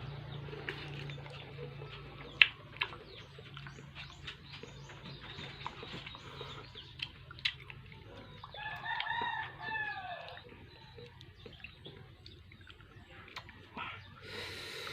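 A rooster crows once, for about a second and a half, near the middle, its call dropping in pitch at the end. Short clicks and smacks are scattered throughout.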